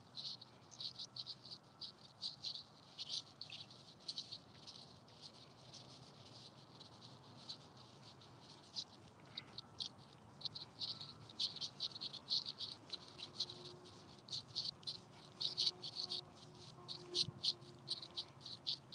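Faint, rapid high chirps repeating in irregular runs: small animals calling, such as insects or frogs.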